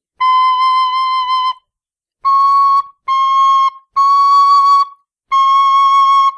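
Nickel Killarney tin whistle sounding five clear held notes with short gaps between them, a cross-fingered note high in its range. The first note is the longest and a little lower in pitch than the four that follow.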